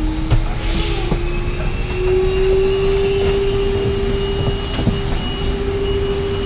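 Steady cabin noise inside an Airbus A380: a low rumble of air and aircraft systems with a droning whine that rises slightly in pitch over the first two seconds and then holds, a faint high whistle above it and a few light knocks.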